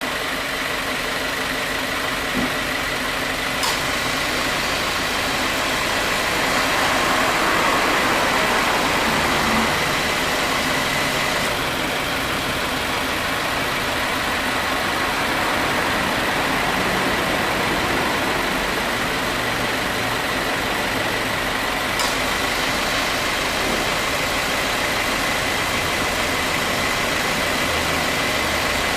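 2018 Subaru WRX's turbocharged flat-four idling steadily with the air-conditioning on, with a thin steady whine. Two sharp clicks, a few seconds in and again about two-thirds through, are the A/C compressor clutch cycling in. The compressor now starts without the abnormal noise that light wear had caused.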